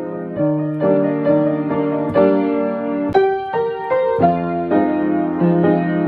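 Background piano music: sustained notes and chords, changing about every half second.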